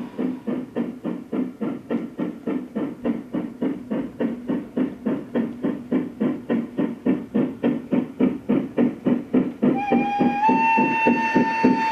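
Gauge 1 model steam locomotive chuffing in an even rhythm, about four beats a second. Near the end a whistle comes in, sliding up briefly and then held on one note.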